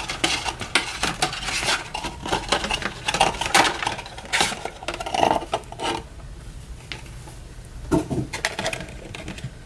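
Packaging of a toy camera drone being handled as the drone is taken out of its box: a busy run of clicks, light clinks and rustles, going quieter after about six seconds, with another short burst of handling near the end.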